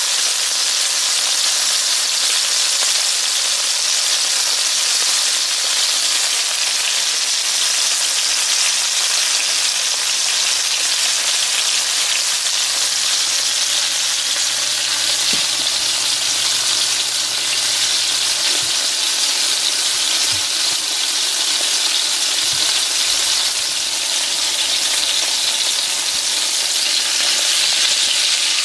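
Seasoned, breaded fish fillets shallow-frying in hot oil in a skillet: a steady, even sizzle.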